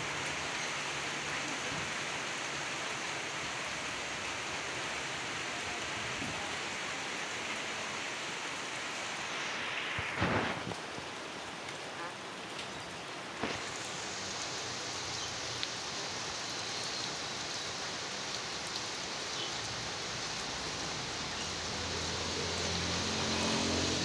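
Steady rain falling on a wire bird cage and gravel, an even hiss. A short louder knock comes about ten seconds in, and the hiss thins for a few seconds after it.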